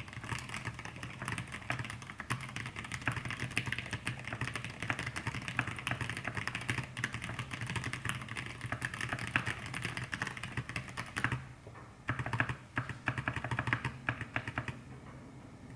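Fast typing on an E6-V2 mechanical keyboard with an aluminium plate, lubed Zealios 65g v2 tactile switches and thick PBT keycaps: a dense, continuous run of keystrokes. The typing pauses briefly about eleven seconds in, resumes for a few seconds, then stops near the end.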